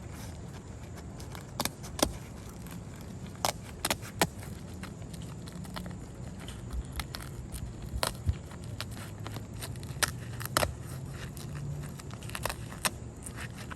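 Irregular sharp clicks and metallic knocks of hand work loosening an asphalt roof shingle, over a steady low rumble.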